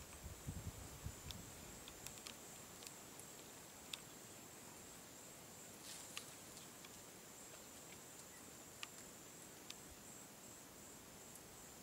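Faint outdoor ambience: a steady high-pitched insect drone with scattered faint ticks, and a few low thumps about a second in.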